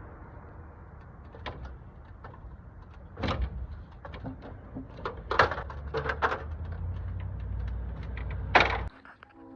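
A series of sharp knocks and clatters over a steady low rumble. The loudest knock comes near the end, just before the sound cuts off.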